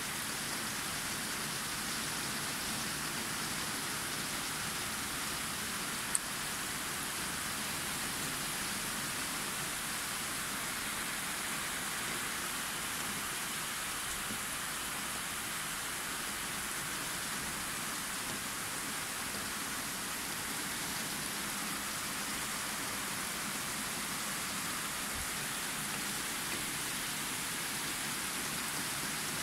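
Steady rain falling, an even hiss throughout, with a single short click about six seconds in.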